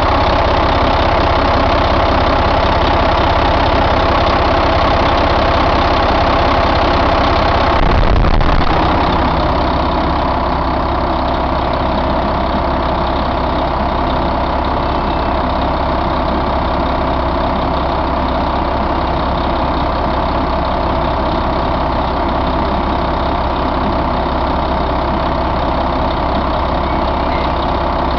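Volvo VED12 12-litre inline-six diesel engine idling steadily. About eight seconds in there is a brief thump, after which the running settles slightly quieter.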